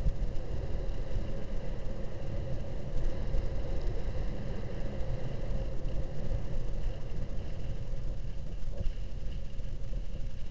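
Steady low rumble of wind on a helmet-mounted action camera's microphone during a downhill ski run at around 25 to 30 km/h.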